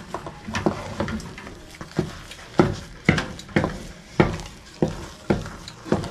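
A wooden cooking stick stirs and presses stiff ugali (maize-flour dough) against the sides of an aluminium pot, knocking against the metal about twice a second. This is the sound of flour being worked into the water as the ugali thickens.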